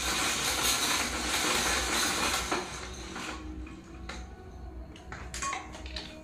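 Zebra roller blind being worked by its pull cord: a continuous rattling whir of the cord running through the blind's mechanism, which stops about three seconds in. A few light clicks and taps follow as the blind is settled by hand.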